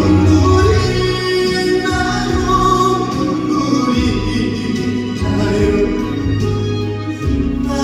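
Korean trot ballad played live over a backing track, with sustained singing over steady bass and accompaniment.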